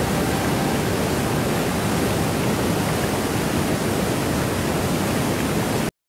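Waterfall: a steady rush of water falling over rock, which stops abruptly just before the end.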